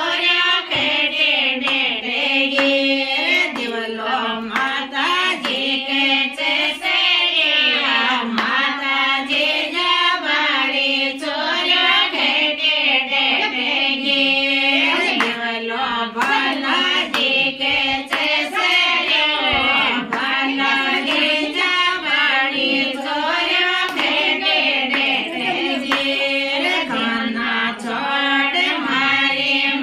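Women singing a Rajasthani devotional wedding song (geet) together in high voices, with sharp hand claps scattered through the singing.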